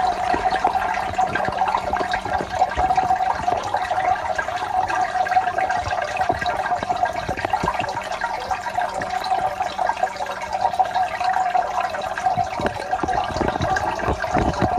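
Water in a 750-litre aquarium splashing and bubbling continuously, with a faint steady hum underneath.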